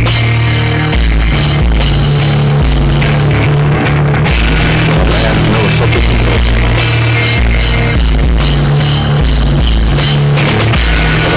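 Recorded screamo music: a loud rock band with drums and guitars, its low bass notes changing about every second.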